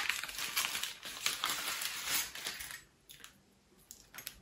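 Plastic accessory bag crinkling and rustling as it is handled and opened, stopping about three seconds in.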